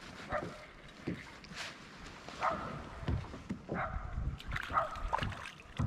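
A hooked bluegill splashing at the surface and being netted beside a plastic fishing kayak, with low thumps against the hull. Several short dog barks sound in the background, most of them in the second half.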